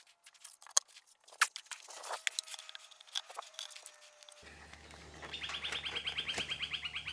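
Scattered light knocks and taps of things being set down and walked on over a timber deck. Near the end comes a rapid high trill from a bird, many short notes repeated evenly for under two seconds.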